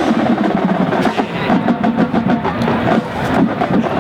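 Marching band drumline playing, a dense run of drum strokes.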